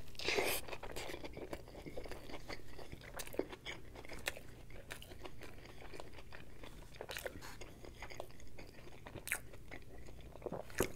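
A bite into a burger topped with a deep-fried, cheese-stuffed portobello mushroom, followed by steady chewing with many small clicks and crackles.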